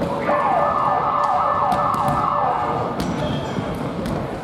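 Basketball stadium scoreboard horn sounding loudly for nearly three seconds, a repeating sweeping tone that cuts off about three seconds in.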